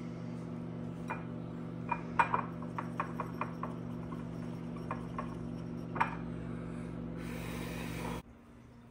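Light clicks and taps of a dry-erase marker and a ceramic bowl being handled on a stone countertop, over a steady low hum. A short hiss comes a little after seven seconds, and the hum cuts off about eight seconds in.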